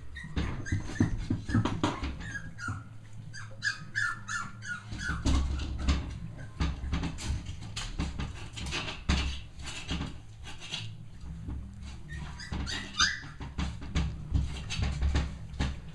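Young Cavalier King Charles Spaniel puppies whimpering in short high squeaky cries, a run of them a few seconds in and another near the end, over close rustling and knocking as a puppy is handled beside the microphone.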